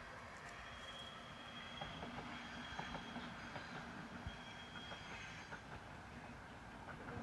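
Faint distant mechanical rumble with a thin, high-pitched squeal that holds for about two seconds, then sounds again more briefly, over a few soft rustles and ticks.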